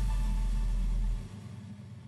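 Closing moments of an electronic background music track: a deep bass note holds for about a second and then cuts off, leaving a faint tail that fades away.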